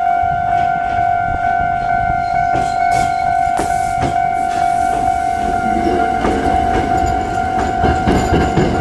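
Japanese level-crossing warning bell ringing steadily. From about the middle on, an Iyotetsu 700 series electric train's wheels and running gear rumble louder as it arrives and starts across the crossing.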